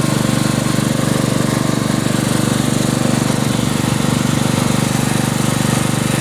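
Riding lawn mower's small engine running steadily under way, with a fast, even pulsing beat.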